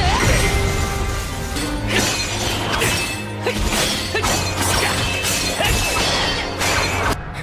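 Anime sword-fight sound effects: a rapid series of sharp clashing and shattering hits over dramatic background music, all cutting off suddenly near the end.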